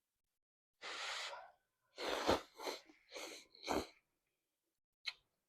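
Mouth sounds of eating instant noodles close to the microphone: a long breathy rush of air, then four loud noisy slurps in quick succession, and two short sharp clicks near the end.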